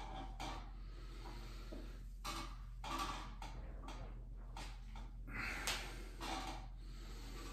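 A man doing rugby sit-ups: hard breaths and the rustle and scuff of his body as he drops back onto a floor mat and springs up to standing, heard as several short bursts over a low steady hum.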